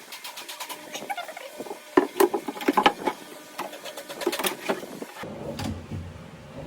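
Metal drawer slides clicking and rattling in irregular light taps as a drawer is fitted back onto them, with the sharpest clicks about two to three seconds in.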